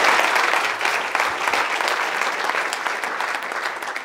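Audience applauding, the clapping fading gradually away.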